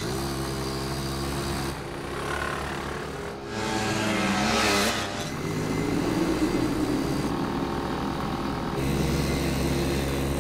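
Scooter engine running and revving, with a rising rev about four to five seconds in.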